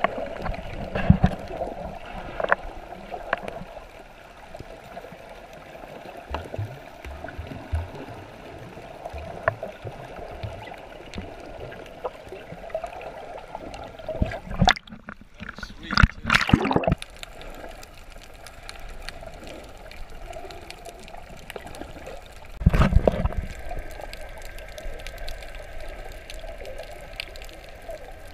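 Muffled underwater water noise heard from below the surface: a steady gurgling wash with frequent small knocks and thumps. There are louder bursts of water noise about 16 seconds in and again about 23 seconds in.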